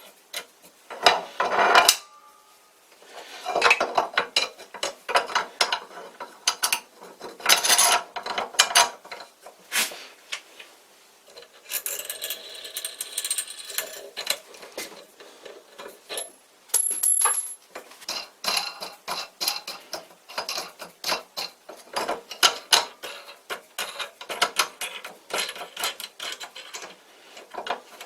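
Steel clamp parts being handled and fitted to a drill press table: many irregular clinks, knocks and scrapes of metal on metal, with a longer stretch of scraping about halfway through.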